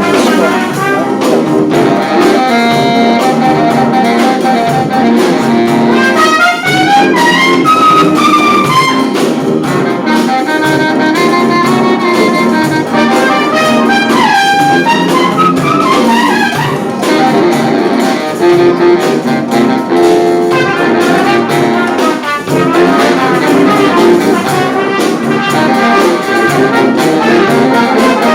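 Brass band playing, trumpets and trombones to the fore with saxophones, in continuous full-band music with quick melodic runs rising in pitch.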